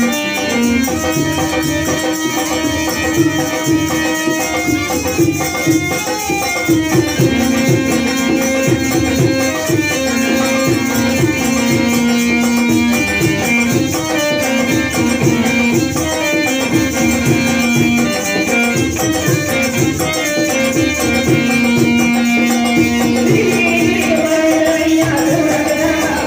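Gondi folk song music: a dense, steady percussion beat with a rattling shaker sound under long held melody notes.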